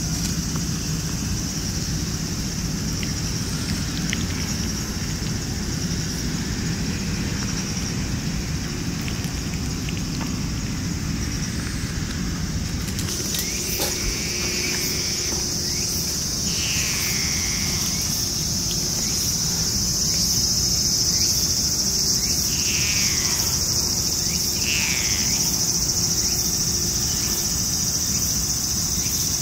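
Steady, high-pitched chorus of insects, louder after about 13 seconds in. A few short falling calls sound over it near the middle.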